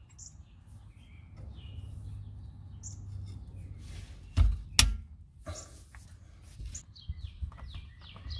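Two heavy metal knocks a little over four seconds in, then smaller knocks and clicks, as a breaker bar is worked on the rear differential plug to break it loose. Small birds chirp in the background.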